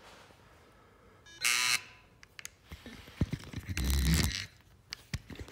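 A workout timer's electronic buzzer sounds once, about half a second long, a little over a second in. Around four seconds in come dull thumps and rustling as the phone is handled and moved, with scattered light knocks.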